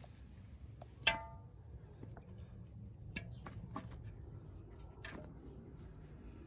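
Bony raw lamb pieces knocking against metal cookware as they are laid into a large aluminium pot: one sharp clang about a second in that rings on briefly, then a few lighter knocks.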